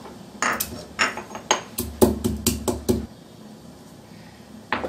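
Green cardamom pods being pounded in a white stone mortar with a stone pestle: a quick run of about a dozen sharp knocks, about five a second, then a pause and one more knock near the end.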